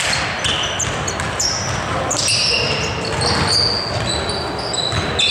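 Basketball being dribbled on a hardwood gym floor, with many short, high sneaker squeaks as players run and cut.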